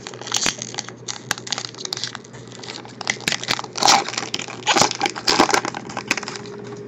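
Foil trading-card pack wrapper crinkling and tearing as it is ripped open by hand, with many irregular sharp crackles.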